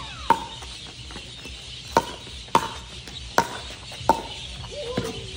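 Pickleball rally: six sharp pops of paddles striking a hard plastic pickleball, irregularly spaced about a second apart, each with a short ringing tone.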